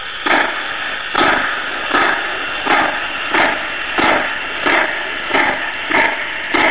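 DCC sound decoder in an O-scale model 141R steam locomotive playing steam exhaust chuffs as the loco moves, about one and a half a second and quickening slightly.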